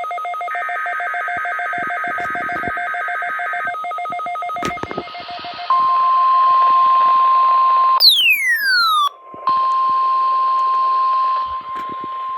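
NOAA Weather Radio test signal through a receiver: a few seconds of warbling SAME header data bursts, a moment of static, then the steady 1050 Hz warning alarm tone from about halfway. Near two-thirds of the way in, a falling whistle-like sweep cuts across the tone and it drops out briefly before resuming.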